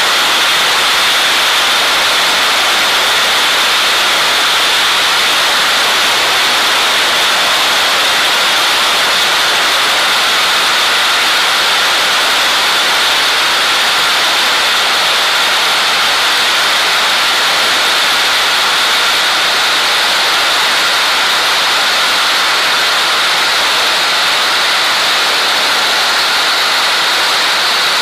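Cessna T210 in flight, heard through wind buffeting an outside-mounted microphone: a steady, loud rush of airflow over the engine and propeller noise, its pitch edging slightly higher near the end.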